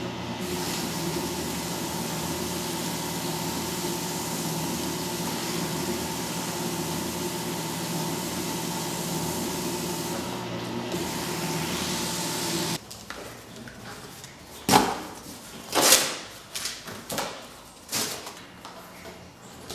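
Fellowes strip-cut paper shredder running steadily with a motor hum as artworks are fed through it. It cuts off suddenly about two-thirds of the way in. After that come several sharp, loud crackles of stiff paper being handled and torn.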